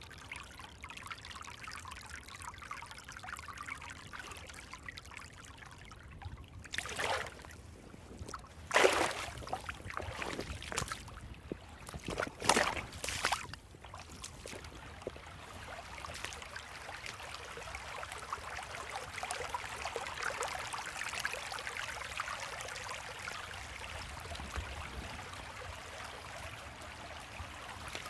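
Creek water trickling and running steadily. A handful of brief, louder noises cut in between about a quarter and halfway through. In the second half the running water grows a little louder.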